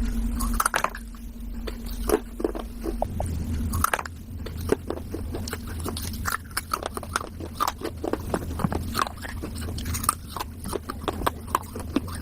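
A person biting and chewing pieces of a wet clay diya, an earthenware lamp: many short, sharp, irregular crunches, sparse at first and coming thick and fast from about four seconds in.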